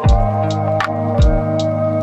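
Background music with a steady beat: electronic kick drums sweeping down in pitch, regular snare or hi-hat hits, and held synth notes.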